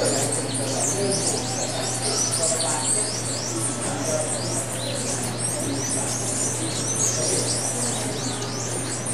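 A chorus of tropical forest birds, many calling at once with quick, high chirps and short whistled glides, over a steady low hum.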